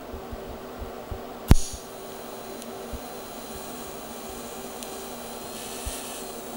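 TIG welding arc from an AHP AlphaTIG 200 struck with a sharp crack about a second and a half in. A steady hiss follows as the arc fusion-tacks a joint in aluminized mild steel exhaust tubing.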